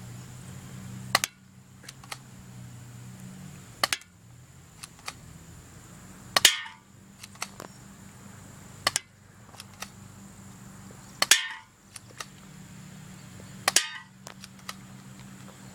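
Crosman Colt 1911 airsoft pistol fired six times, a sharp snap about every two and a half seconds, with smaller clicks between shots. Three of the shots are followed by a brief ringing rattle as the BB strikes a metal can.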